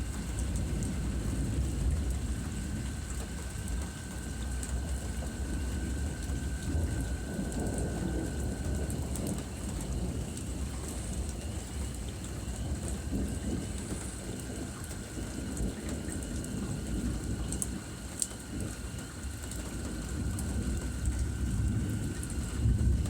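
Rain falling in a thunderstorm, with a low rumble of thunder.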